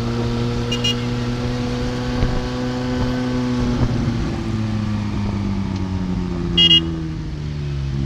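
Ferrari 458's V8 engine running at low revs in street traffic, a steady drone whose pitch rises slightly and then eases off. A car horn gives a short toot about a second in and a louder double toot near the end.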